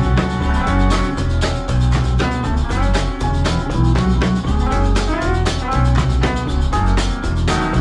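Instrumental music with a steady drum beat and a moving bass line.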